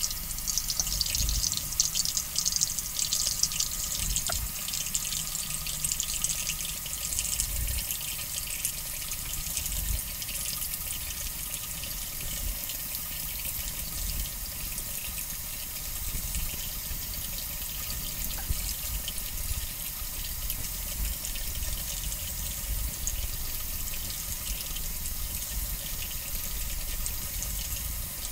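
Tap water running steadily into a bathroom sink, with the scratchy scrape of a Harry's cartridge razor cutting through a long beard, busiest in the first several seconds.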